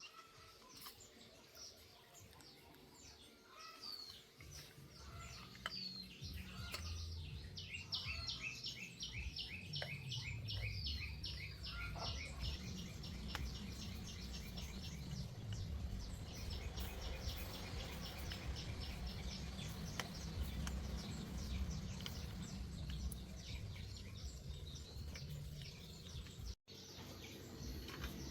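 A bird calling in a fast run of short falling chirps, most of them in the middle of the stretch, over a low background rumble.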